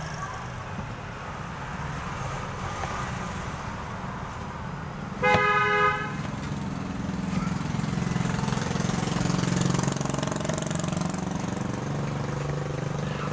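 A vehicle horn toots once, briefly, about five seconds in, over a steady low hum of street traffic.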